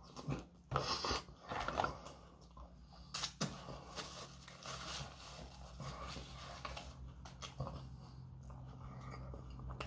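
A person chewing a mouthful of burger close to the microphone, with wet mouth sounds. The sharpest, loudest sounds come in the first couple of seconds, then the chewing goes on softer and irregular.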